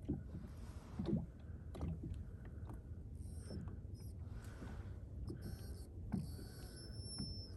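Fishing boat sitting on the water: a steady low hum with scattered light knocks, and a faint whine that comes and goes every second or so.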